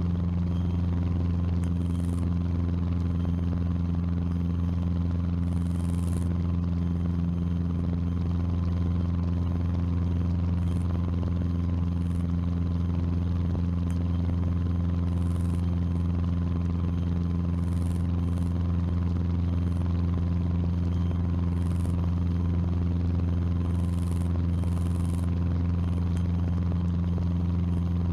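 Cessna 150's Continental O-200 four-cylinder engine and propeller at full climb power, a steady, unchanging drone.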